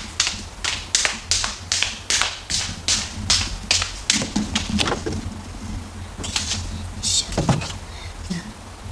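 Footsteps walking briskly: an even run of sharp taps a little over two a second, giving way about halfway through to a few scattered knocks and clatters.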